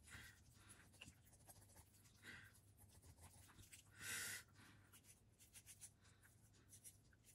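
Faint scraping and cutting sounds of a knife working through raw beef tongue, trimming off fat, sinew and blood vessels, with one slightly louder scrape about four seconds in.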